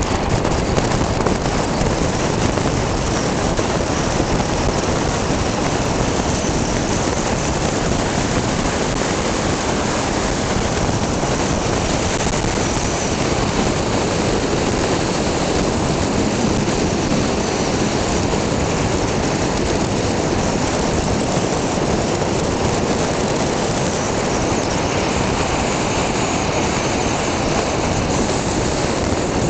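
Steady noise of a car driving along a road: tyres on the asphalt, engine and wind, holding an even level.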